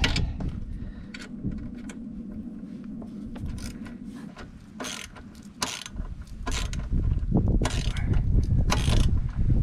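Small metal clicks and scrapes as a bolt and nut are fitted and tightened on a steel saddlebag mounting bracket. A low rumble comes in about six seconds in.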